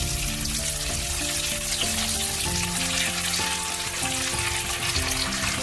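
Oil sizzling steadily in a hot nonstick frying pan as eggs are dropped into it beside stir-fried noodles. Background music with a simple stepped melody plays throughout.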